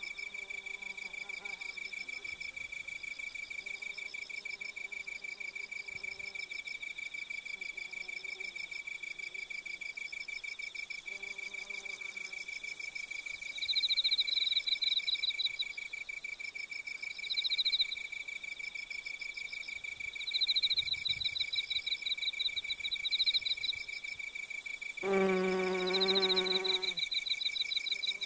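Insects trilling steadily in a high, even pulse, joined from about halfway by a second insect's louder, higher chirping in short bouts. A lower tone with overtones sounds briefly several times, loudest for about two seconds near the end.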